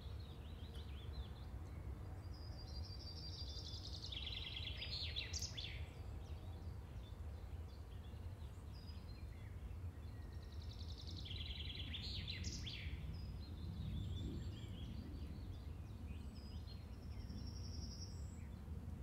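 Birds singing over a low, steady background hum: two longer trilled songs, about four seconds in and again about eleven seconds in, with scattered short chirps between.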